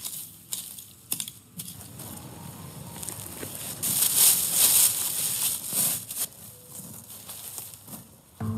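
Rustling and crunching noise, with a few sharp snaps in the first two seconds and the loudest crunching about four to six seconds in.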